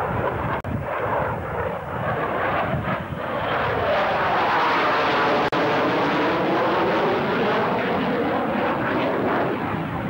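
Loud jet noise from a General Dynamics F-111's twin turbofans as it flies a display pass. The noise swells to its loudest about halfway through, with a sweeping, phasing whoosh as the jet goes by, then eases a little.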